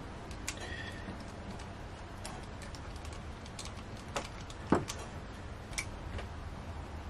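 Ratchet and socket on the cover bolts of a Yanmar 2GM20F raw-water pump: scattered light metallic clicks and clinks, with one sharper knock a little past halfway.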